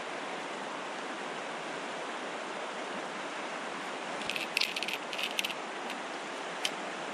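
Steady rush of a flowing river. A little past the middle comes a short cluster of light clicks and ticks from fly-fishing gear being handled as a rod and reel are taken out.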